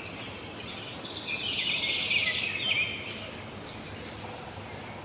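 Raccoon chittering: a string of high-pitched chirps and trills, with a denser, louder trill from about one to three seconds in.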